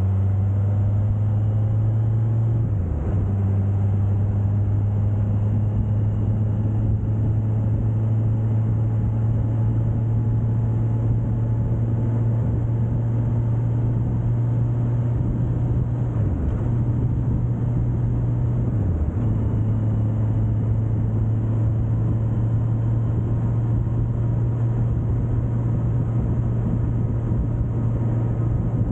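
Suzuki GSX1250FA's inline-four engine running steadily at cruising speed, a constant drone that dips briefly in pitch three times, with steady wind and road rush over the on-bike microphone.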